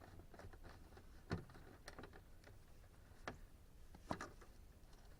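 A few light clicks and knocks of small car door parts being handled and fitted during reassembly of a power lock switch; the loudest comes about a second in, with a double click near the end.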